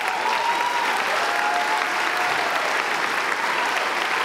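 A large audience applauding steadily, with a few voices cheering over the clapping.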